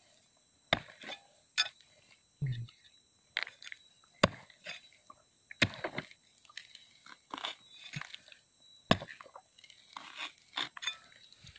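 Steel rebar rod jabbing and scraping into stony, gravelly soil around a buried grey stone: irregular sharp clicks and gritty scrapes, about one every half second to a second, with one duller thump a couple of seconds in.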